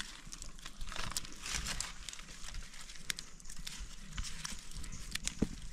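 Rustling with irregular crackles and light snaps of dry forest litter and twigs being disturbed, scattered through without any steady rhythm.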